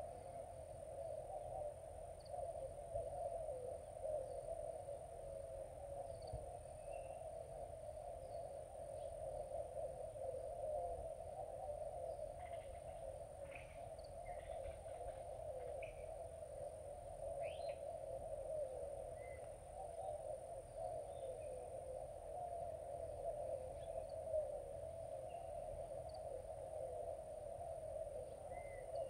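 Riverside outdoor ambience: a steady insect drone with a thin, high, steady whine above it. Scattered short bird chirps come mostly around the middle.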